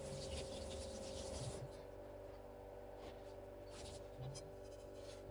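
Knife scraping and cutting on a cutting board while small mackerel are being cleaned. A rough scraping runs for about the first second and a half, then gives way to quieter, scattered scrapes and taps over a steady low hum.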